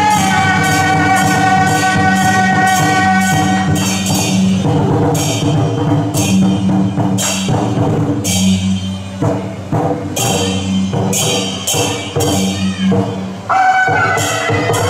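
Temple procession music: a held melody line over steady drumming. About four seconds in the melody drops out, leaving drum beats with crashing strokes roughly once or twice a second. The melody returns near the end.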